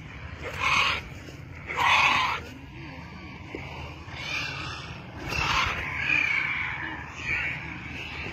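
Birds giving about half a dozen harsh, rasping calls, each under a second long, spaced a second or so apart.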